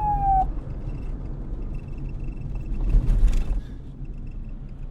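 Police siren ending on a falling tone that cuts off about half a second in. After it comes a low rumble, with a brief louder swell of noise about three seconds in.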